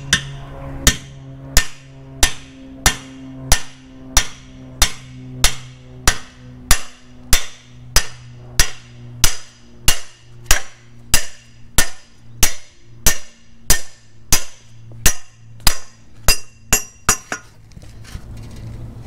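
Steady hammer blows on a drift, driving a rust-seized piston out of the cylinder bore of a cast-iron Chrysler 440 engine block. Each blow is a sharp ringing strike, about one and a half a second, some two dozen in all. They quicken slightly before stopping near the end, as the piston comes free.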